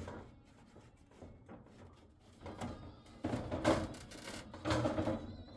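Irregular knocks, clicks and scraping of hand work on building materials, with two louder scraping stretches past the middle.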